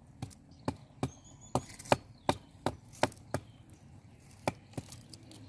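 Knife blade chopping into food held in the hand: a run of sharp cuts about three a second, a pause after about three and a half seconds, then two more.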